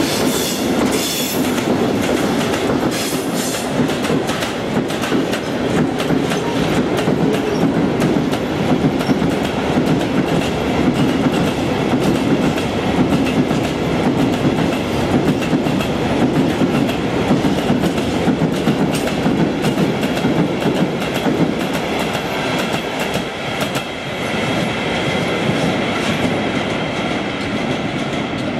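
Freight train hauled by a Siemens Vectron electric locomotive rolling past at close range: a steady, loud rumble of steel wheels with rapid clickety-clack over the rail joints. Thin high wheel squeal creeps in over the last several seconds as the wagons run onto the curve.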